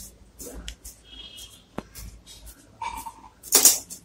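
Hands shaping a soft ball of potato dough over a plastic sheet: light scattered rustles and crinkles of plastic, with a louder crinkle near the end. Two brief high thin whine-like tones sound about a second and three seconds in.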